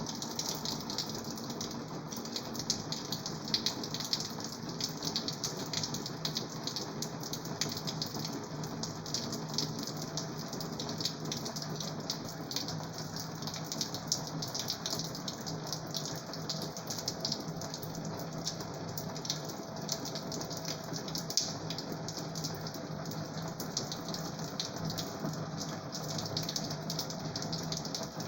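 Steady patter like rain falling, even and unbroken, with dense fine crackle on top.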